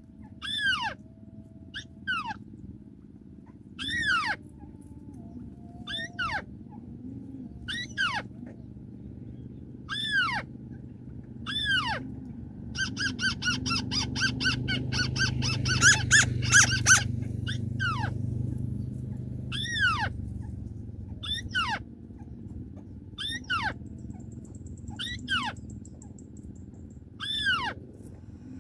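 White-browed crake calls: a sharp, down-slurred note repeated about every two seconds, with a fast, louder chattering run of rapid notes in the middle, over a low rumble.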